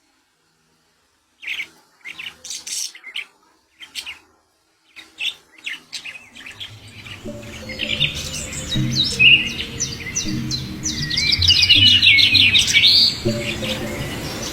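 Pet budgerigars chirping: short scattered calls at first, then a dense, rapid chattering warble in the second half. A low steady background sound comes in underneath about halfway.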